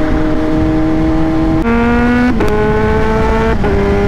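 Kawasaki Z H2's supercharged inline-four accelerating hard from highway cruise and changing up a gear on the quick shifter. The engine note steps abruptly in pitch a few times, with a short click at the shift, over steady wind rush.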